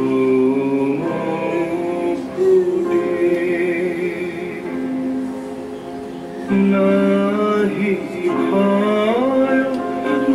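A song with sustained sung notes over instrumental accompaniment, dropping softer in the middle and swelling again about six and a half seconds in.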